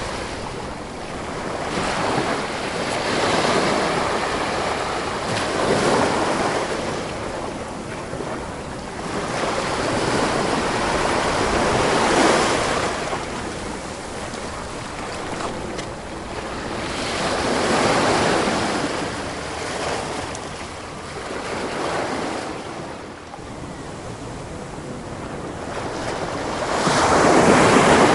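Ocean waves breaking and washing on a shore, one swell every few seconds, with the surge loudest near the end.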